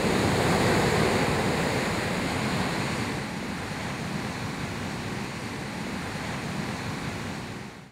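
Ocean surf: a steady rush of breaking waves that eases down over the first few seconds and dies away at the very end.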